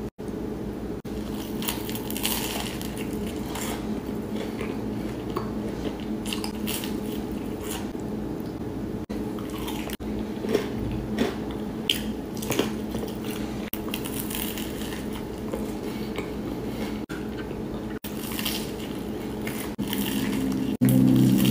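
Close-up eating sounds: bites and chewing of a sauce-covered fried chicken sandwich and chicken finger, with wet squishy sauce sounds and scattered crisp clicks over a steady low hum. A louder low hum comes in near the end.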